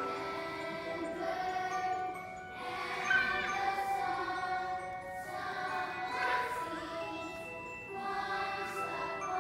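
Children's choir singing together, holding sustained notes.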